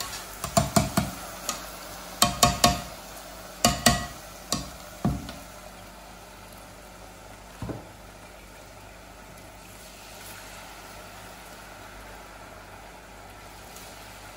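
Cornstarch-battered seitan pieces deep-frying in a saucepan of hot oil, with a steady sizzle. Several sharp metallic clinks of a utensil against the metal bowl and pan come in the first five seconds as the pieces go in, and one more clink comes near the middle.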